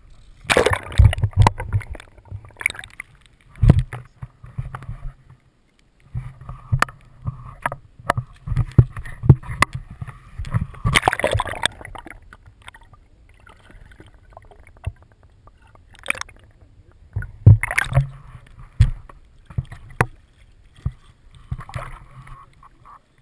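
River water sloshing and gurgling around a waterproof action camera held at the surface and dipped under, with irregular splashes, muffled rumbles and sharp knocks against the housing.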